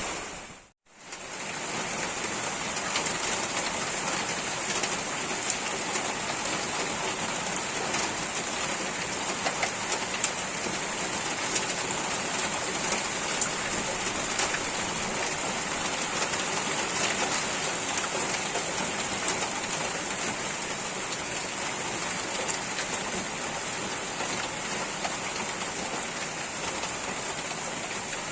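Steady rain falling on surfaces, with scattered individual drops ticking. The sound dips to silence for a moment about a second in, then the rain runs on evenly.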